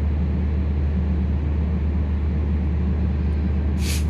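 Steady low machine drone with a strong hum, like a running motor or fan in a workshop, with a brief hiss near the end.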